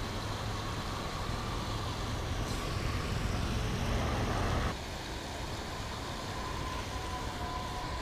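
Steady outdoor rushing noise with a low rumble, which drops off abruptly about four and a half seconds in.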